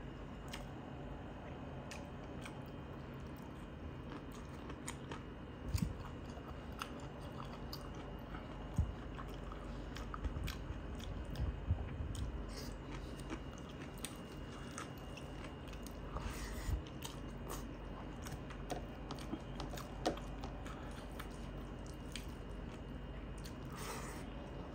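Close-up eating sounds: a person chewing mouthfuls of rice and buffalo curry eaten by hand, with scattered small clicks and a few dull thumps.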